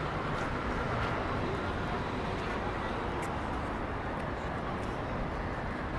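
Busy city street ambience: a steady hum of traffic and passers-by, with a few faint clicks.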